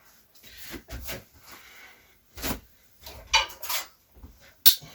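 Scraping and rubbing of metal parts being handled inside a desktop computer case, with a few short knocks and a sharp click near the end.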